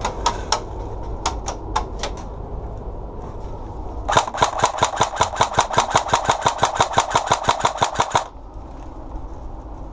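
Airsoft gun shots: a few single shots in the first two seconds, then from about four seconds in a fast, even string of about six shots a second for some four seconds that stops abruptly.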